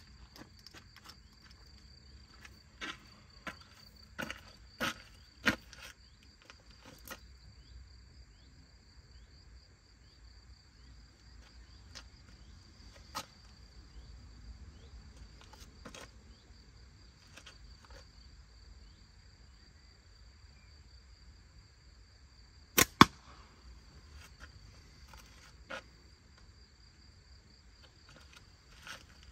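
A flat-band slingshot shot: one sharp double snap of the bands and pouch being released, the loudest sound, about three-quarters of the way through. Scattered fainter clicks and footsteps on a paved road come before it, over a steady high-pitched whine.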